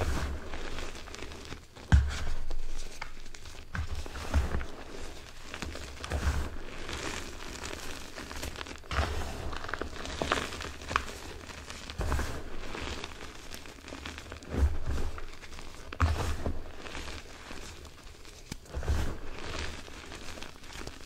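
Hands squeezing and scrunching loose powdered gym chalk in a bowl: soft, irregular crunching and crumbling, with dull low thuds every second or two.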